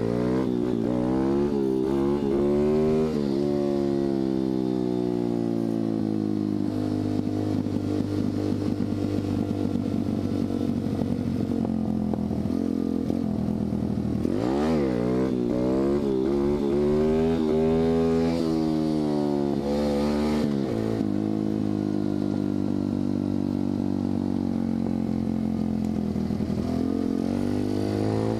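125cc dirt bike engine under way. The revs climb hard at the start and again about halfway through, fall back between, and hold steady while the bike cruises.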